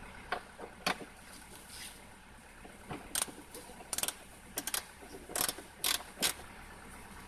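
Daihatsu Hijet Cargo engine idling steadily, with about a dozen sharp clicks and short clattering knocks over it, the loudest near the end.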